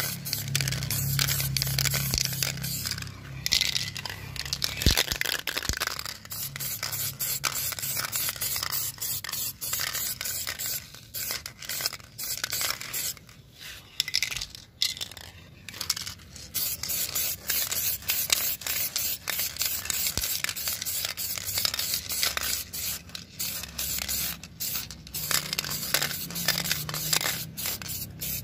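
Aerosol spray paint can hissing in a long run of short bursts with brief breaks between them.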